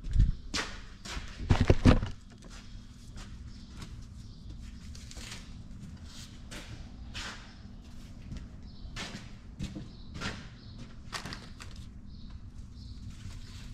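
Handling knocks and clunks, loudest and closest together in the first two seconds, then scattered light clicks and taps over a faint steady hum.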